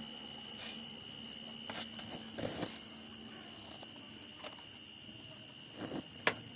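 Faint handling sounds from stripped wire ends being twisted together: a few light rustles and clicks, the sharpest near the end. Under them runs a steady high-pitched cricket chirring.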